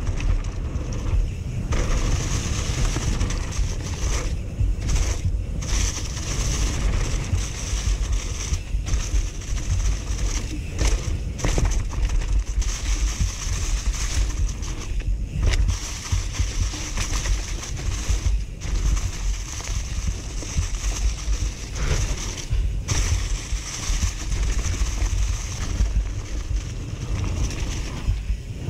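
Mountain bike descending a dirt forest trail: tyres rolling over packed dirt and dry fallen leaves, under steady heavy wind rumble on the bike-mounted microphone.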